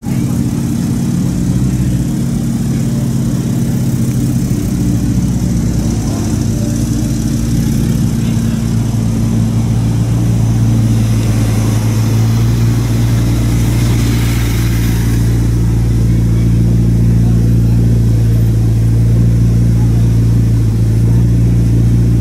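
Gemballa-tuned McLaren 12C Spider's twin-turbo V8 idling, a loud, steady low engine note with no revs.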